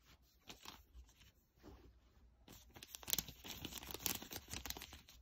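Rustling, crackling handling noise from hands moving cloth on bedding. Quick scratchy crackles come sparsely at first, then thicken and get louder about halfway through.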